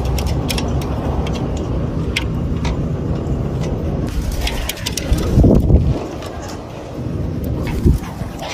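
Steady low rumble of city background, with scattered light clicks from turquoise-fronted amazon parrots pecking at fruit and seed, and whooshes of flapping wings about five and a half seconds in and again near the end as a parrot takes off.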